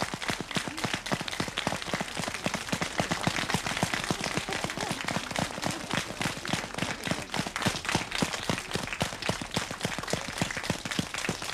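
An audience of children applauding: many hands clapping in a dense, steady patter.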